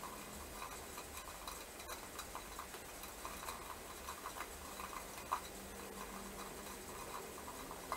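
Sparse, quiet free-improvised ensemble music made of small scattered clicks and ticks, with a sharper click about five seconds in. A faint low hum enters a little after that.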